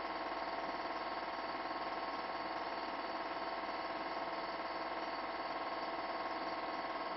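A steady buzzing hum made of many fixed tones, even in level throughout.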